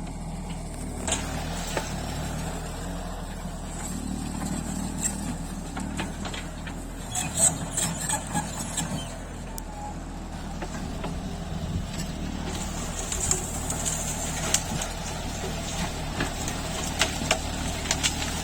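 Mini excavator's diesel engine running steadily, with sharp metallic clanks from time to time, a cluster of them about halfway through and again near the end.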